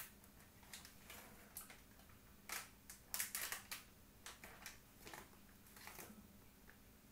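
Faint, scattered clicks, taps and rustles of a spoon and a curry powder container being handled as curry powder is spooned out, busiest about two and a half to three and a half seconds in.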